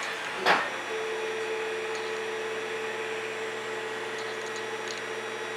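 3D printer running as it prints: a steady hum with a held mid-pitched whine that sets in about a second in. There is a brief thump about half a second in.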